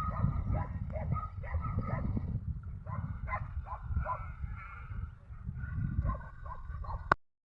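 A dog barking and yipping in quick repeated calls, over a low wind rumble on the microphone. The sound cuts off abruptly near the end.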